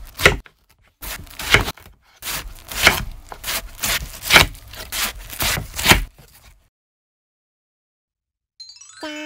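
Knife slicing through watermelon: a series of about eight crisp, crunching cuts, each a sharp stroke, stopping about two-thirds of the way through. A short chime sounds near the end.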